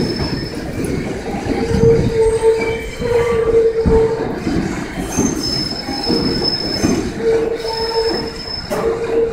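New York City subway train rolling through the yard, its steel wheels squealing against the rails over a steady rumble and clatter. The squeal comes and goes in stretches about a second long, with a fainter high whine joining around the middle and near the end.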